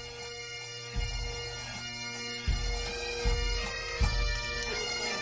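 Bagpipe music: a tune played over a steady drone, with deep thumps every second or so underneath.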